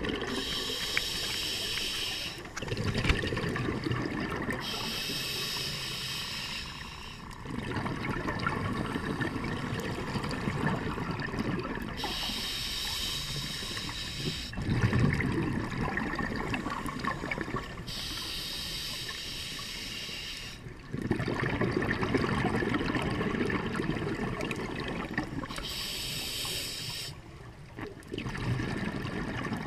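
Scuba breathing through a regulator underwater: a hissing inhale of about two seconds, then a longer stretch of exhaust bubbles, repeated five times in slow, even breaths.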